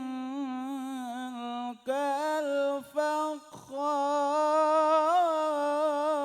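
Melodic Qur'an recitation (tilawah): a reciter's voice drawing out long, wavering held notes on a single phrase, with two brief breaks about 2 and 3.5 seconds in.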